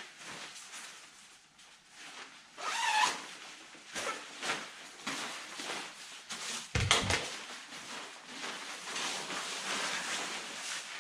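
Clothing being handled and put on: fabric rustling and brushing in irregular bursts, with a thump about seven seconds in.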